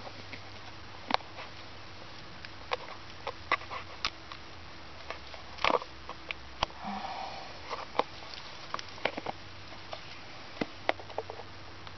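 Scattered light clicks and taps of plastic flip-top vent caps on flooded lead-acid golf-cart batteries being handled and flipped open and shut to check the electrolyte level. A brief soft rustle comes about seven seconds in, over a faint steady hum.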